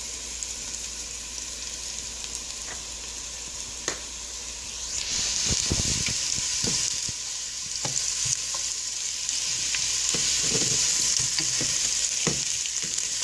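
Small red potatoes sizzling in butter and olive oil in a frying pan. The sizzle grows louder about five seconds in, and a utensil knocks and scrapes against the pan as they are stirred.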